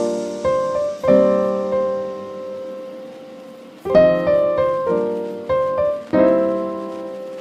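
Slow solo piano music: chords struck and left to ring and fade, a new chord every one to three seconds.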